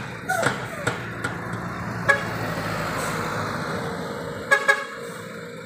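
A minibus passing close by, its engine and tyre noise swelling in the middle, with several short vehicle-horn toots, a quick double toot near the end.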